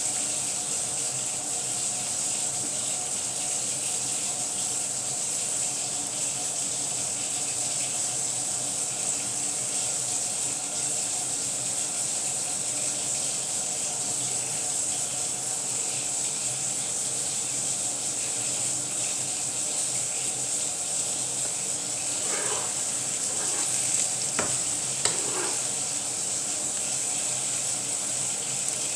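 Egg-and-vegetable omelette frying in a pan, a steady sizzle, with a few brief louder sounds from the pan near the end.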